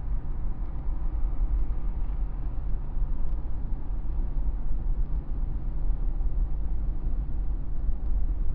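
Truck cruising at freeway speed: a steady low rumble of engine and road noise, heard from the cab.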